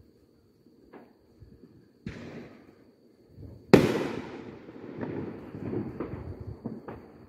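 Consumer aerial firework shells exploding: a softer boom about two seconds in, then a loud, sharp bang a moment later as a shell bursts into stars. The bang is followed by a long rolling echo with several short pops and crackles.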